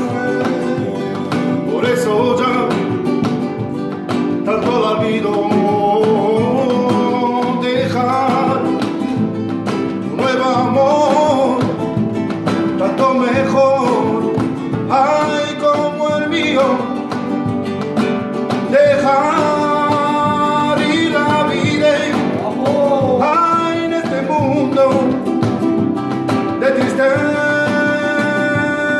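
Flamenco played live: acoustic flamenco guitars strummed and plucked together while a man sings long, wavering notes over them.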